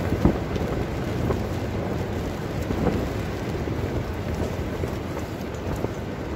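Strong gusting wind buffeting and rattling the tent, heard from inside as a steady low rumble. There is a single thump about a quarter second in.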